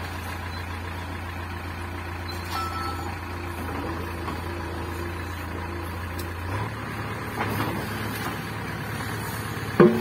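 JCB 3DX backhoe loader's diesel engine running steadily while the hydraulic backhoe arm lifts and lowers its bucket. The engine note changes about two-thirds of the way through, and a sharp knock comes near the end.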